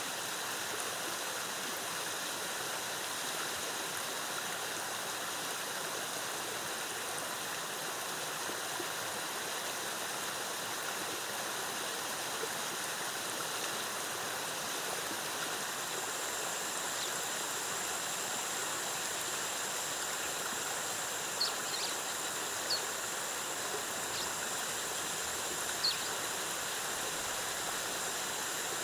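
Waterfall and stream water rushing in a steady, even wash. About halfway through, a steady high thin tone comes in under it, and about three brief high chirps sound in the second half.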